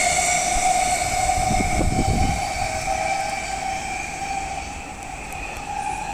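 E233-7000 series electric train pulling away, its steady motor whine fading as it leaves. A short rumble of wheels on the rails comes about two seconds in.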